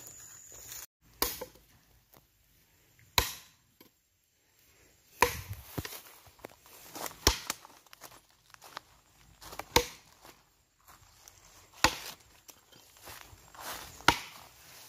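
Long-handled adze chopping into a log to hollow it out for a wooden mortar: seven sharp wooden blows about two seconds apart, with lighter knocks between.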